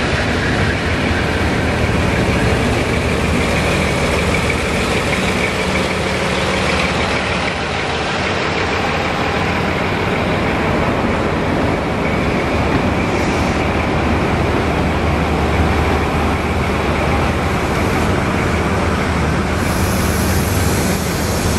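Diesel-hauled train passing at a station: a Class 56 locomotive's engine gives a steady low hum over the rumble of an HST power car and Mk3 coaches rolling by on the rails.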